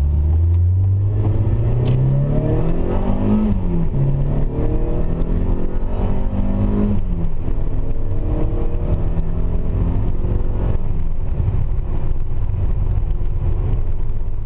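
Mazda Miata's 1.6-litre four-cylinder running through an aftermarket header, high-flow cat and Racing Beat Power Pulse exhaust, pulling hard with the pitch climbing. The pitch drops sharply about four seconds in and again about seven seconds in, then holds at a steadier pitch.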